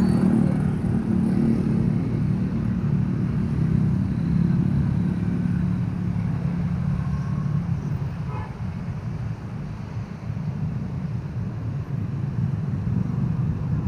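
Motor vehicle engines running steadily, easing off somewhat past the middle.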